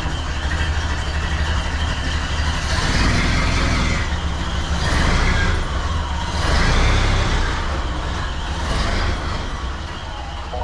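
1931 Ford Model A's four-cylinder flathead engine running as the car is driven away, its revs swelling and easing a few times.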